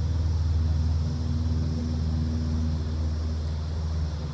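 A small engine running steadily, a low, even hum.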